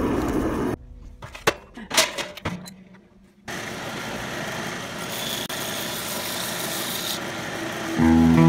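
Gas forge burner running steadily, cutting off abruptly under a second in; a few sharp clicks and knocks follow, then a belt grinder runs steadily from a little before halfway, and music comes in near the end.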